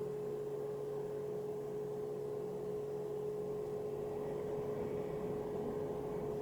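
Steady background hum with one constant mid-pitched tone over a low hiss, and nothing else happening.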